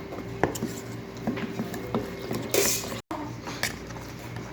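A spoon stirring a thick tahini and yogurt mixture in a bowl, with irregular light clinks and taps of the spoon against the bowl. A brief hiss comes a little past halfway.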